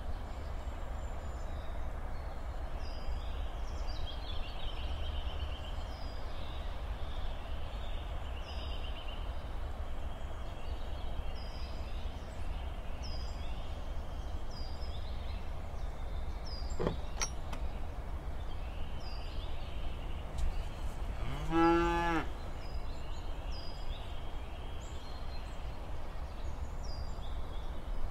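A cow mooing once, about three quarters of the way through, a single call of about a second. Behind it is a countryside sound bed of a steady low rumble and small birds chirping about once a second.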